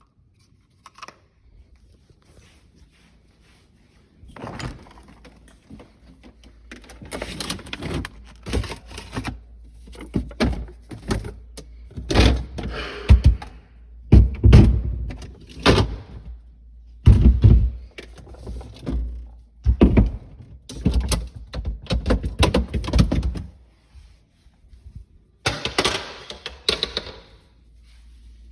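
Repeated thunks and knocks of hard objects being handled, coming in irregular clusters from about four seconds in, several of them loud.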